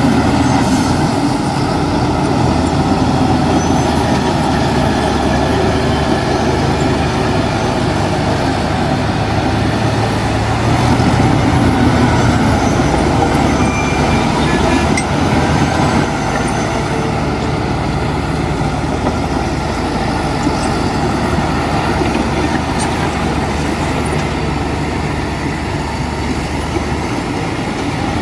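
Heavy diesel construction machinery running at working speed, its engine note shifting a few times.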